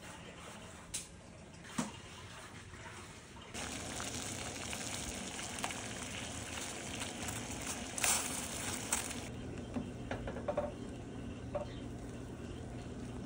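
Water boiling hard in a steel pot: an even bubbling hiss that comes in about three and a half seconds in, after a quieter stretch, with a brief louder splash around the middle as a dough ball drops in and a few light clicks near the end.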